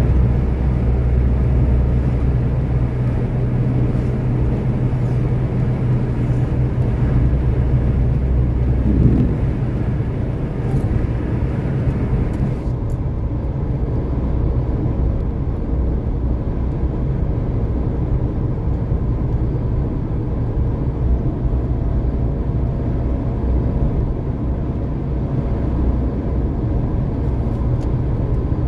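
Truck engine and tyre noise heard from inside the cab while cruising on a highway: a steady low drone.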